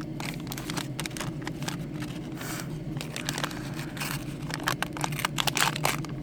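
Wax-paper wrapper of a resealed vintage trading-card pack being torn open and crinkled. It makes a run of sharp crackles that grow denser and louder about four seconds in.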